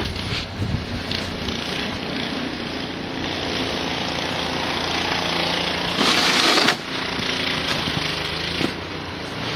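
Small single-cylinder snowblower engine running steadily, with a louder rushing noise for under a second about six seconds in.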